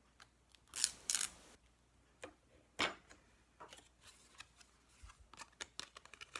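Duct tape being pulled and torn off the roll, a short ripping noise about a second in, followed by a sharp click and then light crinkling and ticking as the stiff plastic milk-jug squares and the tape strip are handled.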